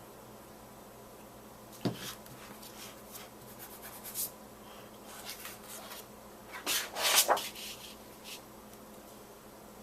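Sheets of cardstock being handled on a worktable: scattered paper rustles and light taps, with the loudest burst of rustling about seven seconds in.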